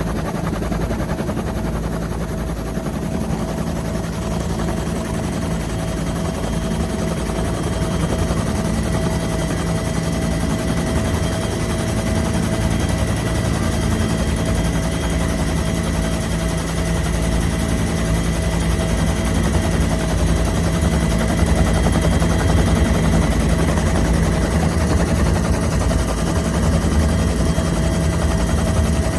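Helicopter in flight, heard from close by or inside the cabin: a steady, fast rotor chop with a constant mechanical whine.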